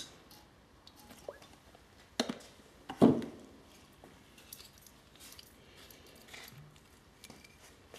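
Handling noises: faint scattered clicks and two sharp knocks, about two and three seconds in, the second louder with a brief ring.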